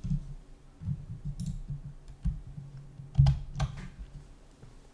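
Typing on a computer keyboard: irregular key taps and clicks, the sharpest about three seconds in.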